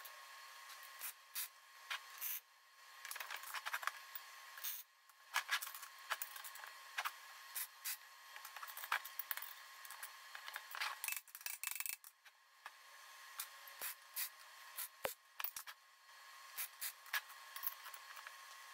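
Steel being worked by hand: clinks, knocks and scrapes as a bent steel bar levers a rolled steel ring flush against its plates. Two short crackling stretches, about three seconds in and again near eleven seconds, are MIG tack welds joining the ring on.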